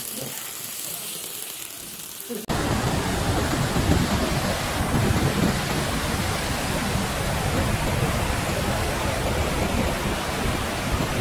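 A steady, unpitched rushing noise. It jumps abruptly about two and a half seconds in to a louder, deeper, buffeting rush.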